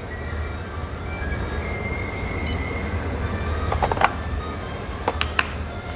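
Steady low shop rumble, with a few sharp clicks around the middle and near the end as the digital torque adapter is handled and its buttons pressed while it refuses to switch off.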